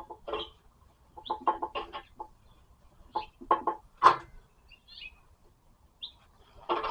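Chickens clucking: short clucks in loose, irregular clusters.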